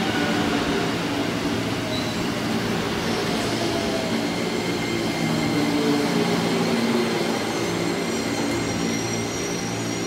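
205-series electric train (5000-series set) slowing as it pulls into the platform: wheels rolling and a motor whine sliding down in pitch, with a thin high brake squeal setting in near the end as it comes almost to a stop.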